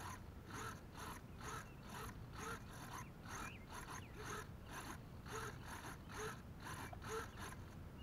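Small hobby RC servos driven by four radio receivers, sweeping their arms back and forth together in short whirring strokes, about two a second. Their steady response shows the receivers are still holding the transmitter's signal.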